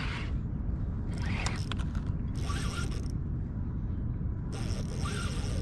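Fishing reel being cranked in stretches to bring in a hooked striped bass, its gears whirring, over a steady low rumble.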